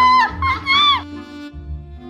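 A high-pitched shout of "안돼!" ("No!") in two drawn-out, arching syllables, over steady background music.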